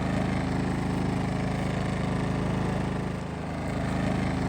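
Small gas engine of a portable inverter generator running steadily, with a brief dip in level about three seconds in.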